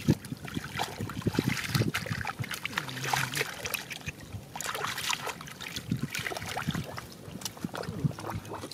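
Hands splashing and sloshing through shallow muddy water as they grope in the mud for fish, with irregular splashes and drips.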